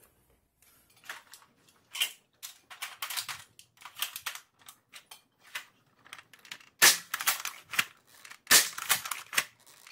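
A spring-powered Nerf Longshot blaster with a Jet Blaster Omni kit being handled and primed, with a series of short clicks and sliding scrapes. It is then fired twice, about 7 and 8.5 seconds in, each shot a sharp, loud crack as the plunger slams home and launches a half-length foam dart.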